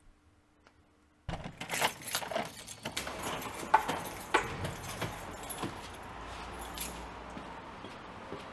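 Keys jangling and clicking as a front door is locked with a key: a run of sharp metallic clicks and rattles over a steady outdoor background hum. They start suddenly about a second in, after near silence, and thin out in the second half.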